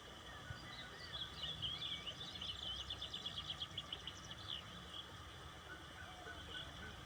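Wild birds singing: short chirps and whistles, with one bird's fast, loud trill of repeated notes in the middle. Steady background noise runs beneath.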